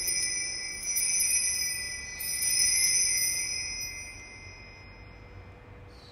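Altar bell rung at the elevation of the chalice during the consecration. A bright ringing tone is struck again about one and two seconds in, then slowly dies away.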